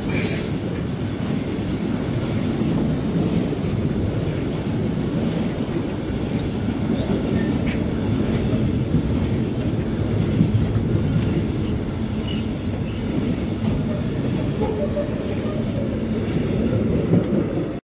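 VGA sliding-wall freight wagons rolling past: a steady low rumble of wheels on rail, with brief high-pitched wheel squeals about three to five seconds in. The sound cuts off suddenly just before the end.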